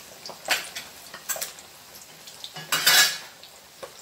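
Metal utensil knocking and scraping against a metal cooking pot as the boiling fish stew is stirred. There are a few sharp knocks and a louder clatter near three seconds in, over the faint bubbling of the pot.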